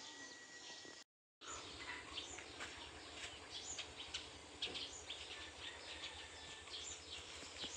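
Faint outdoor ambience with many small, scattered bird chirps and tweets. The sound drops out completely for a moment about a second in.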